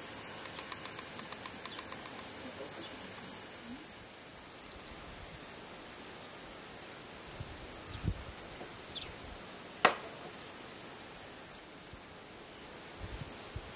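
Insects buzzing in a steady high-pitched drone that does not let up, with one sharp click about ten seconds in.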